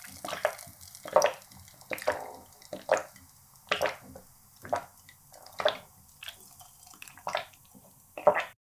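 Close-miked chewing of sushi: wet, squishy mouth sounds and smacks, about one a second. It stops abruptly near the end.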